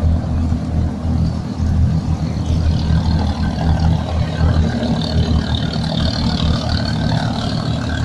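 A steady, low engine rumble.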